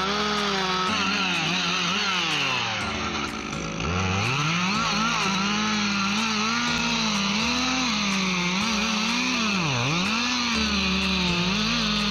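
A two-stroke chainsaw running under cut, its engine pitch wavering up and down. It drops sharply and recovers twice, about four seconds in and again near ten seconds, as the saw loads in the wood or comes off the throttle.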